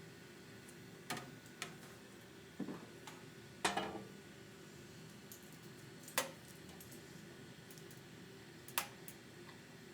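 Steady hum of a Bambu Lab X1C 3D printer running, with about six sharp clicks and knocks scattered through it, the loudest a little under four seconds in.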